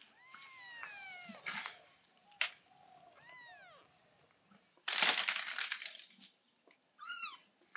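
Young kittens meowing: thin, arching cries, three of them, the last higher-pitched. A short rustling crunch about five seconds in is the loudest sound.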